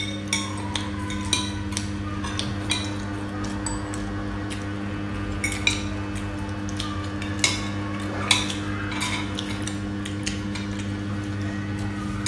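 Metal spoons and forks clinking and scraping against ceramic plates and bowls in short, irregular clicks, a few louder ones scattered through, over a steady low hum.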